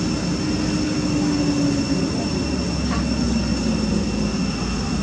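Steady low rumble and hiss with a constant high-pitched whine above it and no clear separate events.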